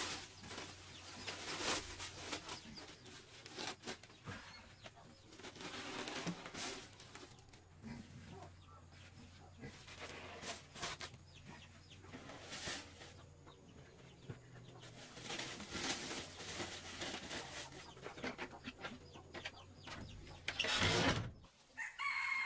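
Chickens clucking over a run of irregular knocks and clicks and a low steady hum. The hum stops about 21 seconds in, at a loud clatter, and a short call follows near the end.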